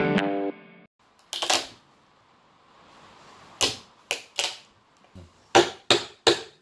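Mallet striking a steel chisel to break out the waste between saw kerfs in an oak slab, cutting a channel. A few scattered knocks give way to a steady run of sharp blows, about three a second, from about five seconds in.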